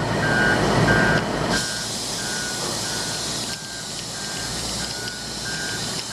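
Dump truck's reversing alarm beeping steadily, about every half second, over the truck's running engine. A loud rush in the first second and a half is the load of dirt sliding out of the tipped bed.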